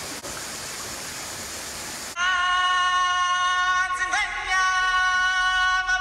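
Steady rush of waterfall and stream water. About two seconds in, background music with a held singing voice cuts in abruptly and drowns out the water.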